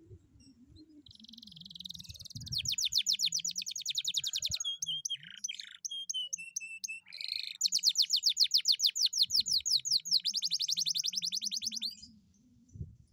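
Domestic canary in full song. A buzzy phrase leads into a fast rattling trill of about ten notes a second. A few short whistled notes follow, then a second long fast trill that stops about a second before the end.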